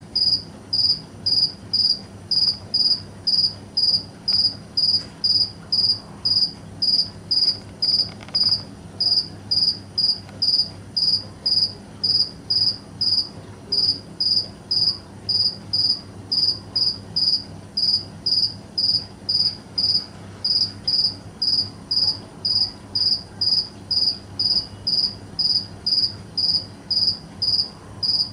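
A cricket chirping steadily in even, short high-pitched chirps, about two a second.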